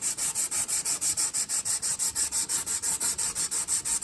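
A metal carburetor housing being rubbed back and forth by hand on sandpaper, a fast, even rasping rhythm of about five strokes a second, lapping its gasket face flat to stop a vacuum leak.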